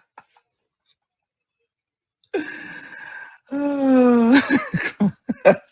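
About two seconds of dead silence, then a second of breathy noise and a long wordless shout from a man, its pitch sagging and then rising, followed by short excited yelps: a fan's reaction to a goal.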